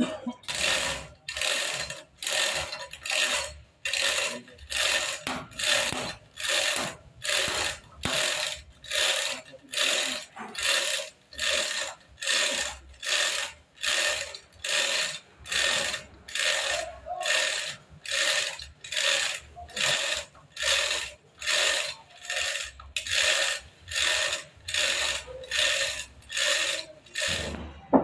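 Manual chain hoist (chain block) being hauled hand over hand to lift a heavy log, its chain rattling through the block in an even rhythm of about three pulls every two seconds.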